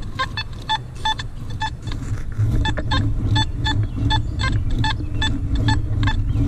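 Metal detector giving short beeps, all at the same pitch, about three a second. A low rumble runs underneath and gets louder about two and a half seconds in.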